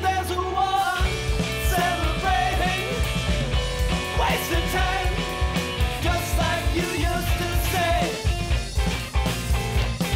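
Rock band playing: drums and electric guitars, with a man singing.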